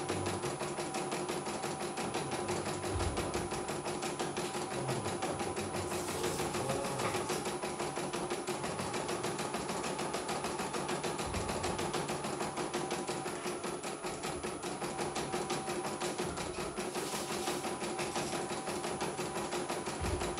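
CNY E900 portable computerized embroidery machine stitching out a design: rapid, even needle strokes over a steady motor hum.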